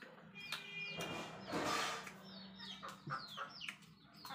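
Chickens clucking and peeping in a string of short, falling chirps, over a low steady hum. A brief rustling hiss comes about a second and a half in.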